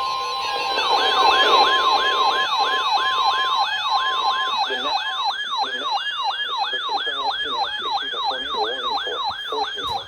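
Loudon ES-2000 warning siren sounding a rapid falling yelp, about three sweeps a second, activated for a tornado warning. It starts about a second in and cuts off suddenly near the end. A steady alert tone from the weather radio overlaps it and stops about four and a half seconds in.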